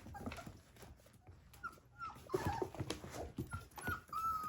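Four-week-old puppies whining: short high cries that dip in pitch, coming more often from partway in, over light scuffling and small knocks. The whining is typical of puppies excited but scared while exploring outside the nest for the first time.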